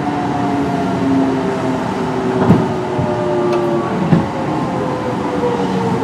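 Kintetsu 1420 series train's Mitsubishi GTO-VVVF inverter and traction motors whining in several tones that slide slowly down in pitch as the train slows, over steady running noise. Two short knocks come about two and a half and four seconds in.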